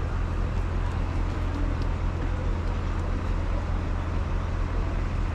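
Steady low rumble of a motor vehicle engine with surrounding road traffic noise, unchanging throughout.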